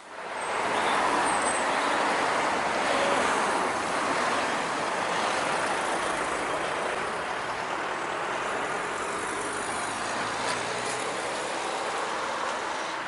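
Road traffic passing close by: a steady rush of tyre and engine noise that swells up suddenly at the start and slowly eases off, with faint bird chirps above it.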